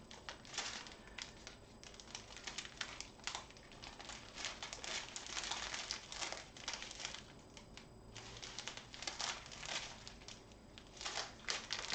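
Strips of small clear plastic bags of diamond-painting drills crinkling as they are handled and laid out, in irregular crackles with a couple of short lulls.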